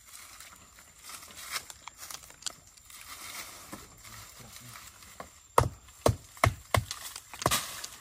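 Dry leaf litter rustling and crunching under a person's feet, then about halfway through a run of about five sharp, loud knocks a few tenths of a second apart.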